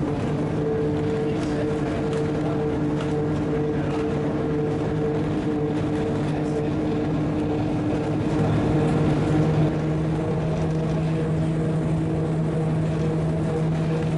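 Principe–Granarolo rack railway tramcar running uphill: a steady whine of its electric motors and rack gearing, with a higher note joining about ten seconds in.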